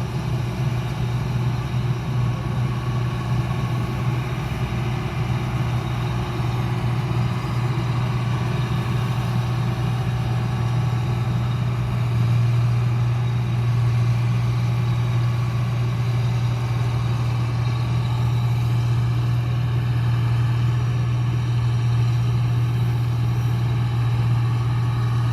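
New Holland 8070 combine harvester's diesel engine running steadily with a deep hum, a little louder from about halfway through.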